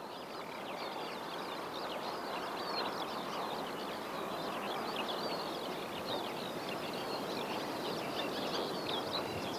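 Outdoor ambience: many small birds chirping continuously over a steady rushing background noise.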